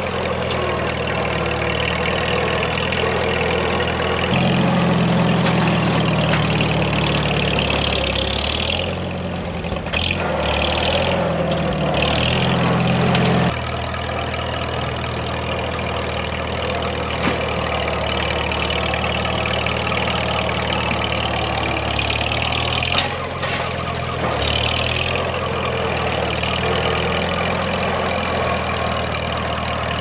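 Farmall H tractor's four-cylinder engine running. It is louder and works harder from about four seconds in, then drops abruptly at about thirteen seconds to a steadier, quieter run.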